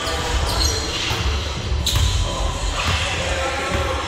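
Basketball game play on a hardwood gym floor: the ball bouncing, a sharp impact about two seconds in and short sneaker squeaks, echoing in a large hall.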